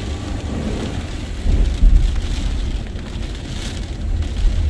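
Hurricane-force wind gusting, with low, uneven rumbling buffets on the microphone over a steady rain-like hiss; the strongest gust comes about two seconds in.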